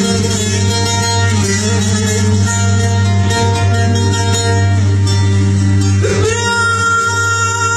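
Live Kurdish folk song: a plucked string instrument plays a melody over a steady low drone. About six seconds in, a man's singing voice comes in, sliding up into a long held note.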